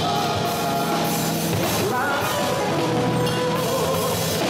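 Live band playing upbeat samba-funk (sambalanço) with drum kit, congas and electric guitar, a male singer's voice at the microphone over it.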